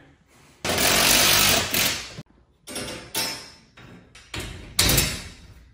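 Steel horizontal garage-door track being handled and fitted into place overhead. A sustained metallic scraping rattle lasts about a second and a half, then comes a few shorter scrapes and clanks, the loudest near the end.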